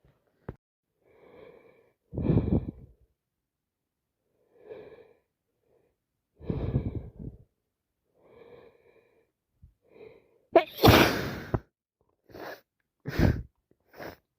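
A woman sneezing again and again with a cold that has turned into sinusitis: quieter gasping in-breaths build up to louder sneezes. The biggest and wettest sneeze comes about ten and a half seconds in, followed by three short, sharp bursts.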